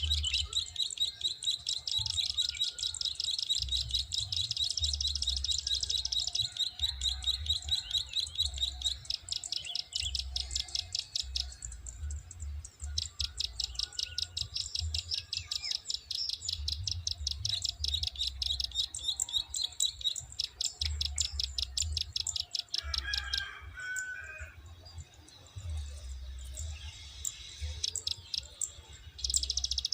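Prinia (ciblek sawah / prenjak klik) giving its 'klik' call: a fast, high clicking trill repeated in long runs of several seconds with short breaks between them.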